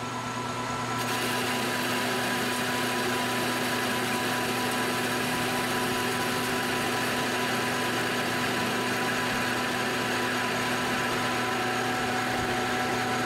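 Metal lathe taking a facing cut across the end of a 1144 Stressproof steel bar, about 0.040 in deep: a steady motor and gear hum with a few held tones, and the even rushing noise of the carbide tool cutting, which comes in about a second in and then holds steady.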